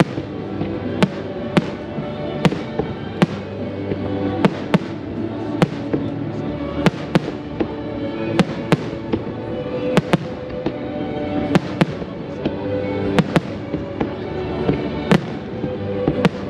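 Aerial firework shells bursting in a steady string of sharp bangs, about two a second, with music playing underneath.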